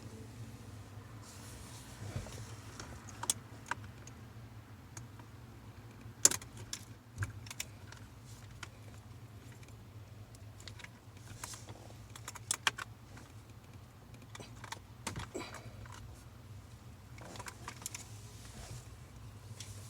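Scattered small clicks and rattles of plastic wiring connectors being pried at and unplugged behind a car's steering wheel, the sharpest snap about six seconds in.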